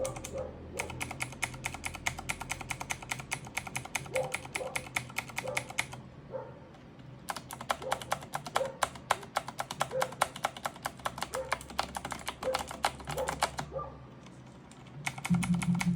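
Mechanical keyboard key fitted with a Razer Green PBT keycap, pressed rapidly over and over to test its sound: two runs of fast, even clicking several seconds long, with a short pause between them and near the end.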